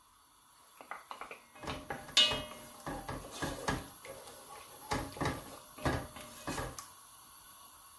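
Wooden spoon knocking and scraping against the inside of a nonstick pot while stirring onion in melted butter: a string of irregular clicks and knocks that stops about a second before the end.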